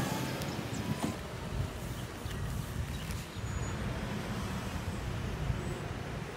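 Hand pruning shears snipping flower stems, a few small sharp clicks, over a steady low rumble.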